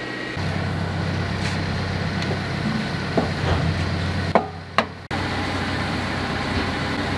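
Travel lift engine running with a steady low hum, with a few sharp wooden knocks as pads and stands are set against the yacht's hull for chocking.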